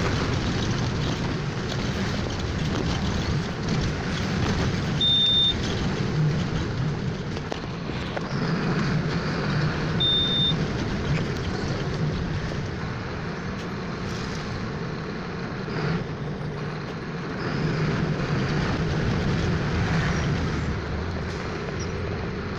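City bus heard from inside the cabin while driving: a steady engine run with road noise from the wet street, swelling and easing with speed. Two short high beeps sound about five seconds apart, the first about five seconds in.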